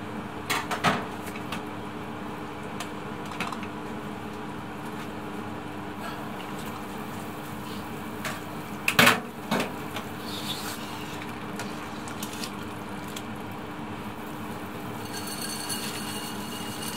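Soup boiling in a large stainless-steel stockpot, over a steady hum, with a few clanks; the loudest is a short cluster about nine seconds in.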